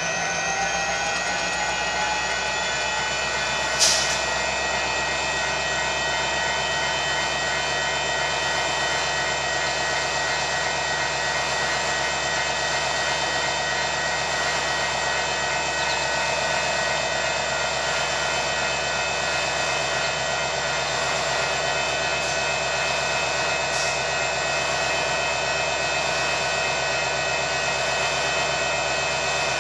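Union Pacific diesel-electric freight locomotives running steadily close by, a high whine over their engine sound. The whine rises in pitch over the first couple of seconds and then holds, with a short sharp burst of noise about four seconds in.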